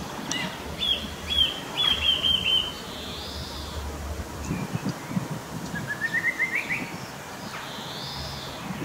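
Small songbirds chirping outdoors. A quick run of short chirps comes about a second in, and a short rising series of chirps comes near the end, over a steady low background rumble.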